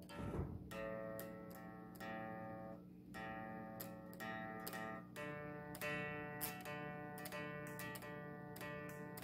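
Swing electric guitar played through a Valeton Dapper Amp Mini pedal into a Fender Champion 20 amp: plucked chords and single notes that ring out, the picking growing busier about five seconds in. A short low thump right at the start.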